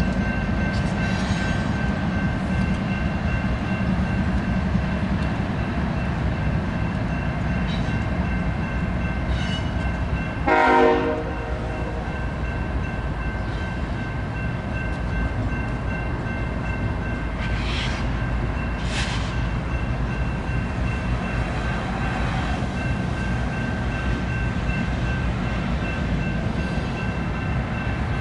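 BNSF intermodal freight train rolling past, a steady rumble of cars on the rails. About ten seconds in, a short horn blast of roughly a second rises above it.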